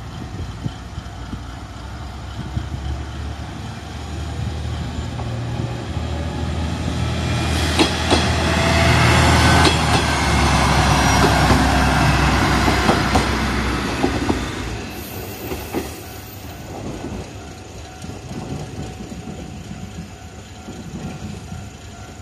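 Isumi Railway 300-series diesel railcar passing. Its engine and running noise grow louder over several seconds and peak as it goes by, with a string of wheel clicks over the rail joints, then fade away.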